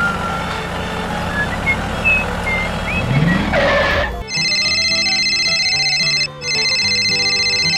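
A steady motor running, with short high whistling chirps, for about four seconds. It cuts abruptly to a loud electronic ringing tone like a phone ringtone, which pauses briefly about six seconds in.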